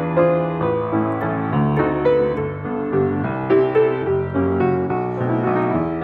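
Grand piano being played by hand: a melody over held low chords that change about once a second.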